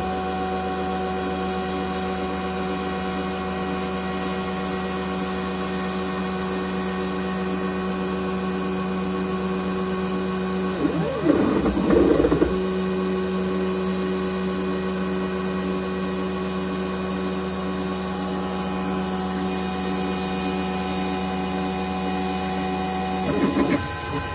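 CNC-converted Harbor Freight X2 mini mill running a face-milling pass with a 25 mm three-flute indexable end mill at about 4600 RPM: a steady machine whine of several even tones from the spindle and stepper-driven table, broken by a louder, rougher stretch about 11 seconds in and again near the end.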